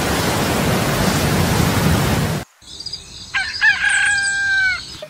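A steady rushing hiss that cuts off suddenly about halfway through, then a rooster crowing once, a long call that falls in pitch at its end. The crow is a sound effect marking time passing.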